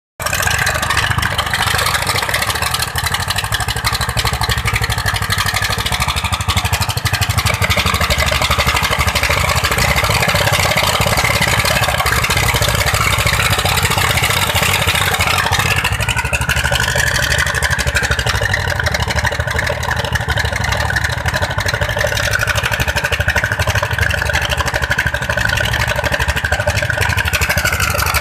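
Single-cylinder 'dompeng' diesel engines on a sand-mining raft, driving the sand-suction pump and running loud and steady. About sixteen seconds in, a higher tone within the engine noise rises in pitch.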